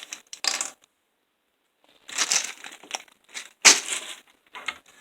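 Packaging crinkling and rustling as food packets are handled and stacked in a cupboard, in short bursts with a pause about a second in and a sharper, louder knock a little past the middle.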